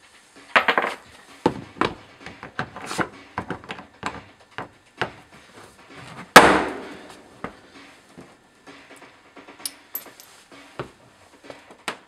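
A claw hammer clicks and knocks against a Henry vacuum's caster shaft and plastic body as it is fitted and levered. About six seconds in comes one loud, sharp crack with a short ringing tail: the sudden jolt on the hammer used to pop the broken caster out.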